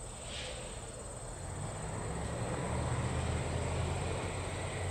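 Diesel freight locomotives' low engine rumble building up and growing louder about a second and a half in, over a steady high buzz of crickets.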